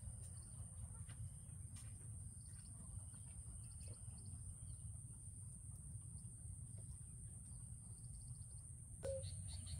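Faint outdoor ambience: several short, high chirping trills over a low, steady rumble, with a brief louder sound about nine seconds in.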